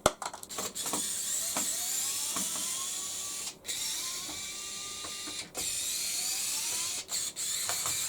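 An electric screwdriver running in several stretches of a couple of seconds each, with short pauses between them and a rising whine as the motor spins up each time, while it backs screws out of a washing machine's panel. A sharp click comes at the very start.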